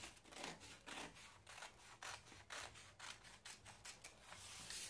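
Scissors cutting through brown pattern paper: a faint run of short snips, about two or three a second, following a curved line.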